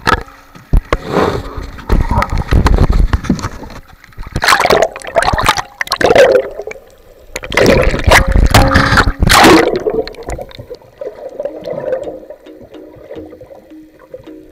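Seawater splashing and gurgling over a camera's microphone as it plunges in and out of the water, in several loud surges over the first ten seconds, then a quieter muffled underwater wash.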